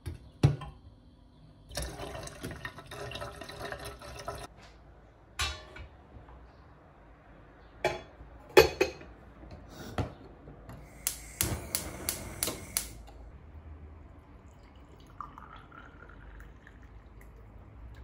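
Tap water running into a glass teapot for about three seconds, followed by glass-on-metal knocks as the teapot is handled and set on a gas stove's grate, the loudest a sharp clunk. Then a quick run of sharp clicks, like a gas burner's igniter, and a faint steady hiss.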